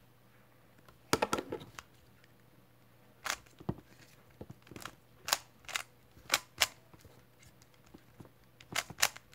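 Rubik's cube being turned by hand: short plastic clicks of its layers snapping round, one quick cluster about a second in and then scattered single and paired turns.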